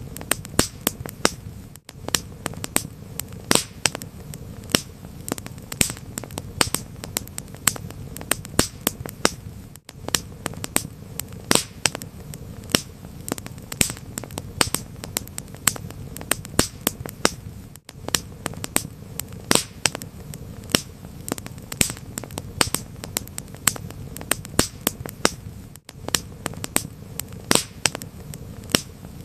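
Wood fire crackling: frequent sharp pops and snaps of varying loudness over a steady low rumble, with a brief dropout about every eight seconds.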